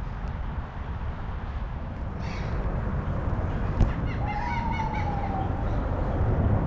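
Bird calls, a few short chirps and a longer, slightly falling whistled note, over a steady low outdoor rumble, with one sharp tap about four seconds in.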